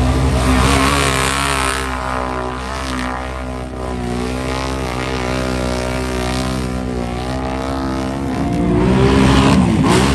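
ATV engine held at high revs as the quad races through a mud pit, its pitch wavering slightly. Near the end a louder, deeper engine note comes in.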